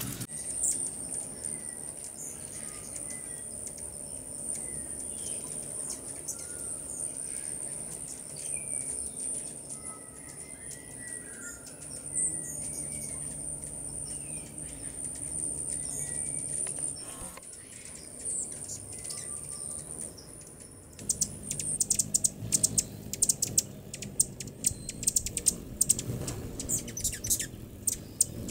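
Hummingbirds chirping and chittering at the feeders: thin scattered chirps over a steady high hiss, then, about three-quarters of the way in, a fast run of sharp, high chips.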